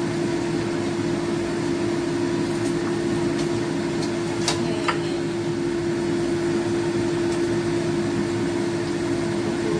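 Steady machine hum holding one constant tone, with a metal spatula clinking against a steel wok a couple of times about halfway through.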